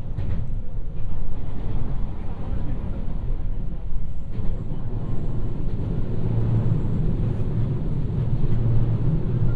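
Cabin running noise of a JR West 223 series electric train at speed: a steady low rumble of wheels on rail, with a couple of faint knocks near the start and about four seconds in.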